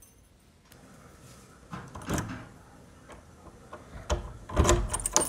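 Key and lever handle of a stiff door lock being worked: a series of metallic clicks and rattles. The loudest come about two seconds in and in a cluster near the end.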